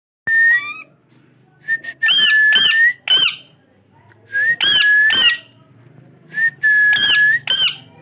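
Indian ringneck parakeet whistling: a short whistle, then the same whistled phrase three times, each a held steady note broken by quick upward swoops.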